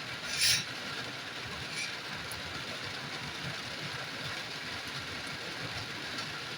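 Steady rain falling, an even hiss, with a brief louder hiss about half a second in.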